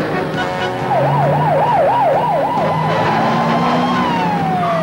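Police car siren, rapidly warbling up and down about three times a second, then holding a single tone and gliding down in pitch near the end.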